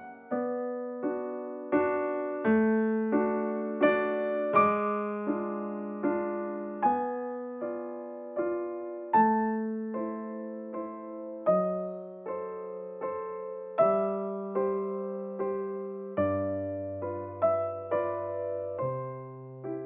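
Background piano music: gentle notes struck in a steady rhythm over held bass notes.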